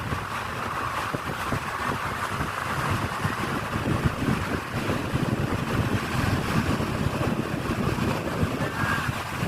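Wind buffeting the microphone in uneven gusts over a steady rush of sea surf.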